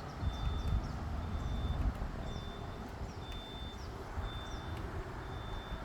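Wind buffeting the microphone in a low rumble as a storm cloud passes over. Behind it, a high, even-pitched animal call repeats about once a second, with quick falling chirps in between.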